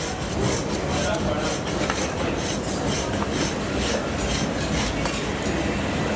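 Rhythmic rubbing and scraping strokes on raw pork skin, about three or four a second, as the rind is worked for crackling, over a steady background hum.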